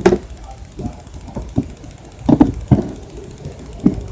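Handling noise: a string of irregular knocks and clicks, the loudest about two and a half seconds in, over a faint low hum.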